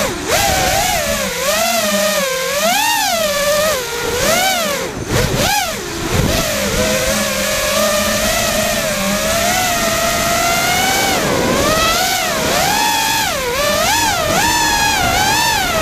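FPV freestyle quadcopter's brushless motors and propellers, with ESCs on FETtec Alpha firmware, whining continuously. The pitch swoops up and down with the throttle, dips briefly about five seconds in, and wobbles quickly several times near the end.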